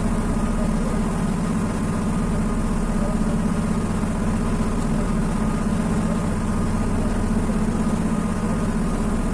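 An engine running steadily at a constant speed, a low rumble that does not change.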